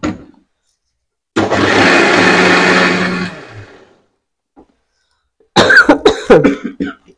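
Electric kitchen mixer grinder grinding a wet masala paste. The jar has a new blade and washer. It switches on suddenly, runs steadily for about two seconds, then spins down.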